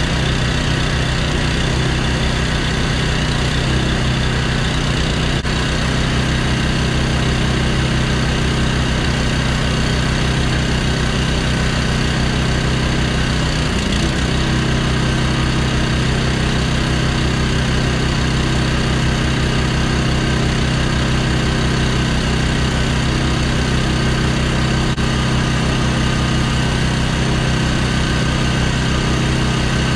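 An engine running steadily at one constant speed, with no change in pitch or level.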